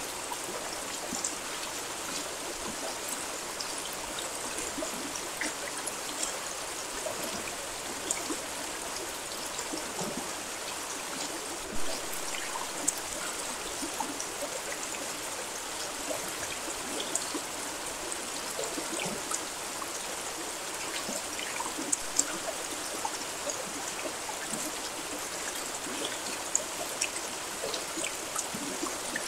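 Steady rain: an even hiss with many single drops ticking through it, and now and then a louder drip.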